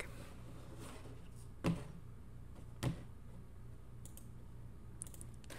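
Two sharp computer mouse clicks, about a second apart, then a few fainter ticks near the end, over a low steady hum.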